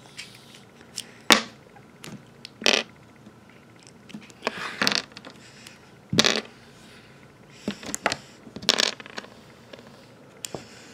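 Plastic Lego Technic pieces being pulled apart by hand and set down on a table: a series of sharp plastic clicks and snaps, about four of them loud, with softer handling rustle between.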